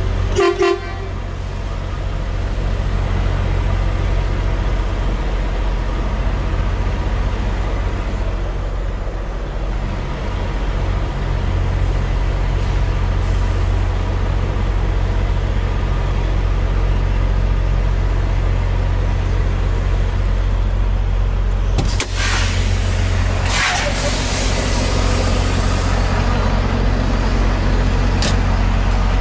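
Semi-truck diesel engine idling with a steady low drone. About 22 and 23.5 seconds in come two short bursts of hissing or banging noise.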